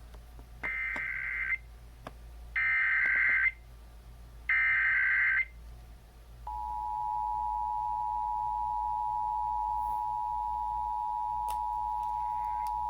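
Emergency Alert System test on radio: three one-second bursts of SAME header data, evenly spaced about two seconds apart, then, about six and a half seconds in, the steady two-tone EAS attention signal begins and holds.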